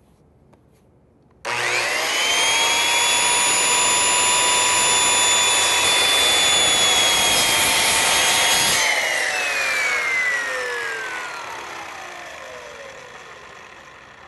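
Corded circular saw switching on about a second and a half in and cutting a half-depth shoulder kerf across pressure-treated lumber, running at a steady whine. Near nine seconds the trigger is released and the blade spins down, its whine falling in pitch and fading.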